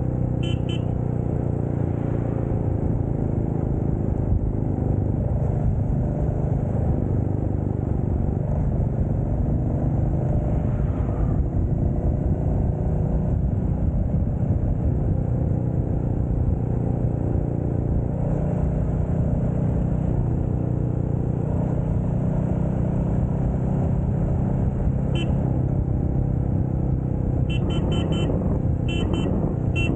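Royal Enfield Meteor 350's single-cylinder engine running at a steady cruising speed, with heavy wind rumble on the microphone. Short high-pitched beeps sound briefly about half a second in, once more later, and several times near the end.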